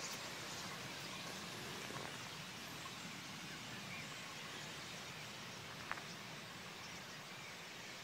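The massed sound of a huge flock of black birds overhead: a steady hiss that eases slightly. A single sharp click comes about six seconds in.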